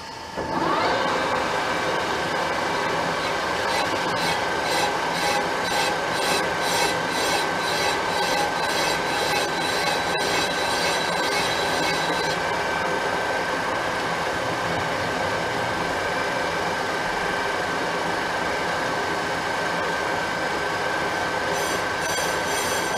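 Metal lathe switched on about half a second in, spinning up with a short rising whine and then running steadily with a high whine and rumble as it turns a cross-drilled brake disc in its chuck.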